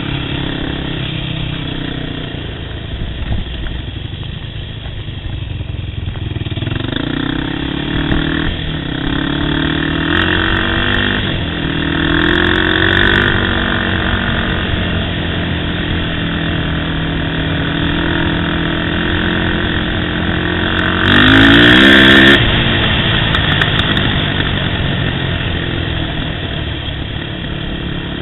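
Sport ATV's single-cylinder engine running under way, its pitch rising and falling as the throttle is opened and eased off. About three quarters of the way through it gets briefly louder, with a rushing noise over the engine.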